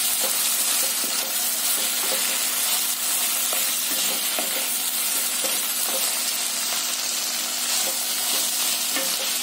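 Sliced onions and capsicum sizzling steadily in a hot non-stick pan while a wooden spatula stirs them, with light scraping against the pan.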